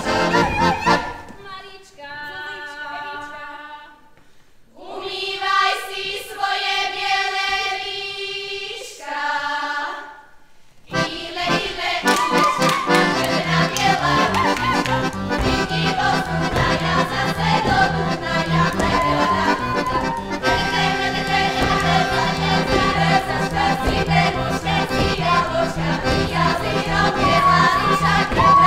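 Folk band led by accordion playing a dance tune. About two seconds in the band drops out and a few voices sing a short passage alone; about eleven seconds in the full band comes back in with a fast, steady dance beat.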